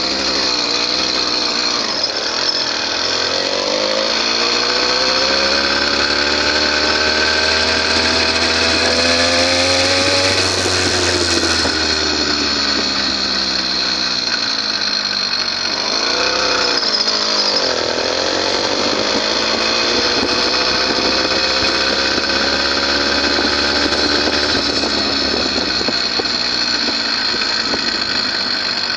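A bike's small engine running as it is ridden. Its pitch climbs steadily as the bike speeds up, drops briefly about two-thirds of the way through as it slows, then picks up again.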